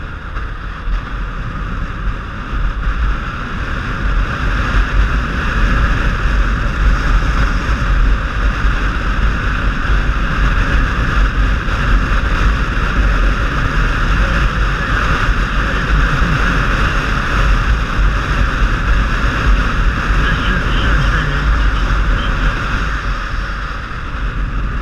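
Wind rushing over a helmet-mounted camera on a moving touring motorcycle, with the engine and road noise running underneath; it grows louder over the first few seconds as the bike picks up speed, then holds steady.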